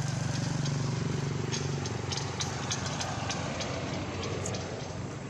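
A motor vehicle engine running with a low steady hum that fades after about two seconds. Light clicks are scattered throughout.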